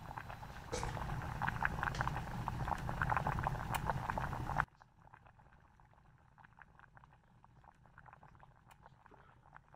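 Water boiling in an aluminium saucepan with eggs in it, a dense bubbling crackle. About halfway through it cuts off suddenly to a faint scatter of ticks.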